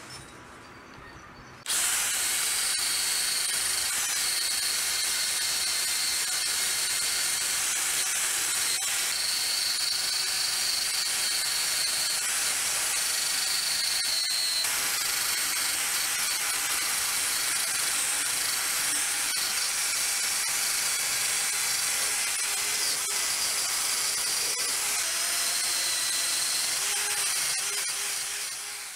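Cordless drill spinning a wire wheel brush against a steel hatchet head held in a vise: a steady high hiss of wire bristles scrubbing the metal. It starts abruptly about two seconds in and fades out near the end.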